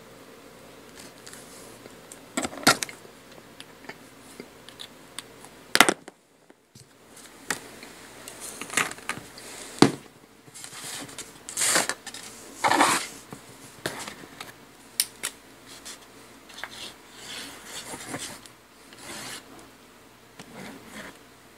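Cardstock being handled and rubbed against a cutting mat: intermittent short rustling scrapes with a few sharp taps.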